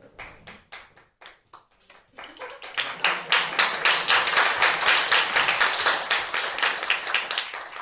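Audience applause: a few scattered claps at first, then about two seconds in the whole audience joins in. It claps loudly for several seconds and thins out near the end.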